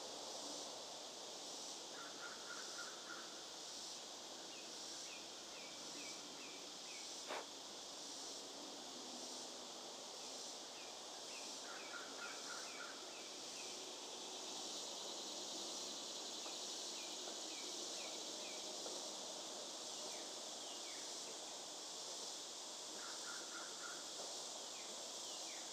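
Outdoor ambience: a steady chorus of insects, with birds repeating short series of quick descending chirps and a lower trilled phrase that comes back about every ten seconds. A single sharp click sounds about seven seconds in.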